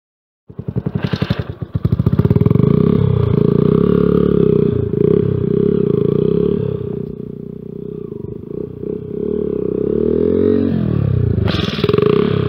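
Honda CS1 motorcycle's single-cylinder four-stroke engine running and revving as it is ridden, its pitch rising and falling several times, with a sharper rev near the end.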